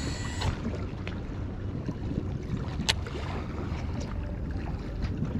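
Wind rumbling on the microphone and choppy water lapping around a wading angler, with a single sharp click about three seconds in.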